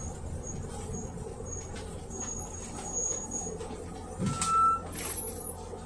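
Cabin noise inside a moving PAZ 320540-22 bus: its ZMZ-52450A engine running steadily under road and body rattle. A brief louder knock and clatter comes about four seconds in.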